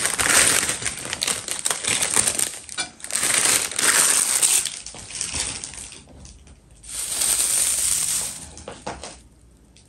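Dry shredded decorative grass rustling and crackling as it is pulled from a crinkling clear plastic bag and pulled apart by hand, in several bursts with short pauses.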